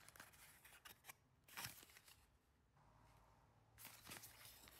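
Near silence, with a few faint rustles and taps of a cardboard perfume box being opened and its contents pulled out; the clearest comes about one and a half seconds in.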